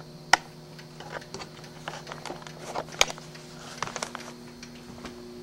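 A steady low hum with scattered light clicks and knocks, the sharpest about a third of a second in and another about three seconds in.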